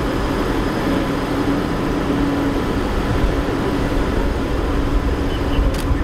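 Steady motor-vehicle noise: an engine running with a steady hum, over street traffic rumble. A brief click comes near the end.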